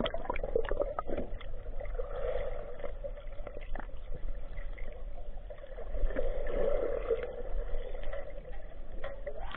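Underwater sound of a swimming pool picked up by a submerged camera: a steady low water rush with small clicks and gurgles, swelling twice.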